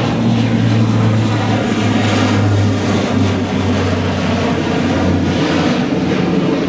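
DE11 diesel-hydraulic locomotive's engine running as it moves light engine, a steady low drone whose pitch shifts slightly a few times.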